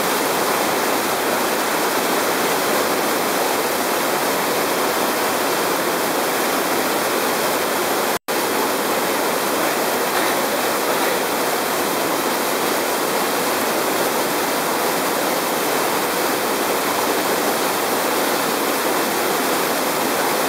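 Waterfall pouring down a rock chute into a pool: a steady, even rush of falling water that cuts out for an instant about eight seconds in.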